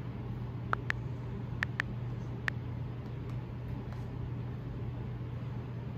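Five short, sharp key clicks from an iPad's on-screen keyboard as a word is typed, in the first two and a half seconds, over a steady low hum.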